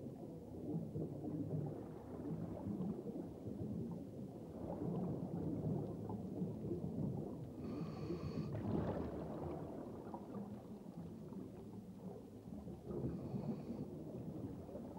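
Low rumbling, churning underwater water noise, with two brief high tones about eight and thirteen seconds in.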